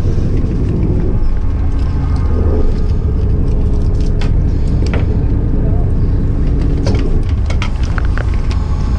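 Fishing boat's engine running with a steady low rumble, with a few sharp knocks on deck about four to five seconds in and again near the end, and faint voices.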